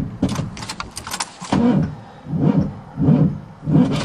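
1977 GMC truck's engine cranking on the starter without catching, turning over in uneven, labouring surges about every half second to a second, with sharp clicks among them. The owner blames the hard cranking on ignition timing set too far advanced.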